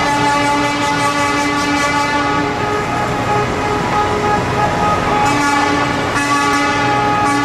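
Truck air horns sounding in long, held blasts, several tones together like a chord, the lowest tone dropping out for a few seconds in the middle.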